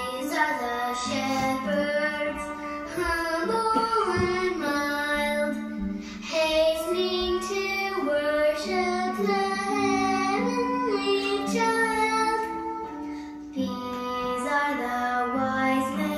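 Music: a high singing voice over an instrumental accompaniment.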